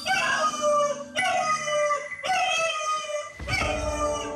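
A cocker spaniel howling in a string of drawn-out wails, each about a second long and sliding down in pitch. This is the howling of a dog with separation anxiety.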